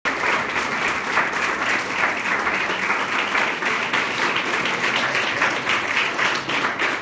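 Audience applauding a brass ensemble as the players bow, the clapping holding steady.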